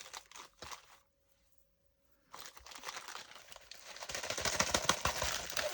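Packaging being crinkled and rustled as a diamond painting kit is handled and opened: a stretch of crackly rustling, a break of about a second, then denser crinkling that grows louder towards the end.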